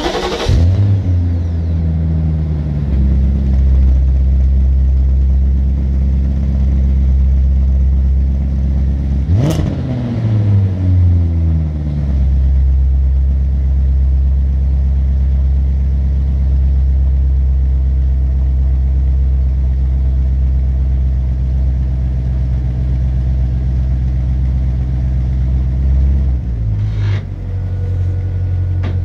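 BMW E39 540i's 4.4-litre V8 through a Supersprint exhaust, just fired up. It runs at a higher idle that steps down after about three seconds, and is revved once about nine seconds in, the note rising sharply and falling back over a couple of seconds. After that it idles steadily, settling slightly lower near the end.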